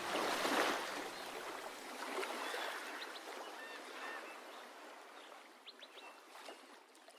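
Outro of an electronic ambient track: the sustained synth notes stop and a hissing, stream-like water texture swells, then fades out slowly. A few faint high chirps sound through it.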